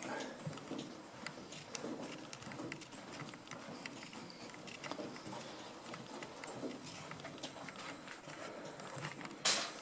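Footsteps walking over a floor strewn with grit and debris: irregular steps with small crunches and clicks. A brief loud noise comes near the end.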